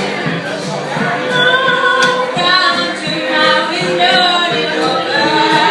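Live music with female singing.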